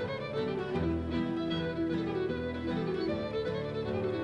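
Background music: a fiddle playing a tune over a lower sustained accompaniment.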